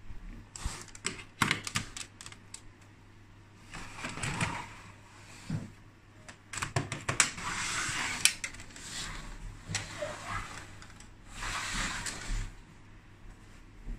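Hard plastic Lego Duplo pieces clicking and scraping as they are handled and fitted on the baseplate. A quick run of sharp clicks comes in the first couple of seconds, then scraping, rattling bursts with single knocks.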